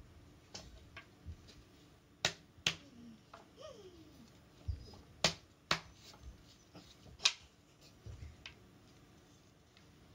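Wooden baby gym frame pieces knocking and clicking together as a leg is fitted onto the dowel crossbar: about five sharp irregular clicks with a few dull thumps between them.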